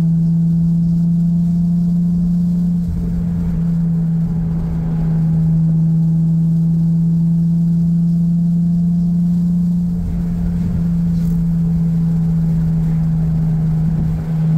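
Cabin sound of a 2004 Nissan 350Z's VQ35DE V6, fitted with an aftermarket exhaust (Motordyne ART pipes, Z1 muffler), droning steadily at a constant cruise. The drone is one strong, even tone that holds the same pitch, with road rumble underneath, and the level dips slightly a few times.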